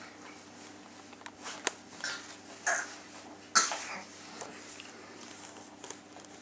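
A baby being spoon-fed its first solid food makes a few brief throaty, cough-like sounds, the loudest and sharpest about three and a half seconds in.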